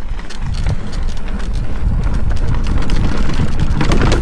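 Mountain bike riding fast down a dirt trail: tyres rumbling over the ground and the bike rattling and clicking over bumps, with wind buffeting the microphone. It grows steadily louder as speed builds.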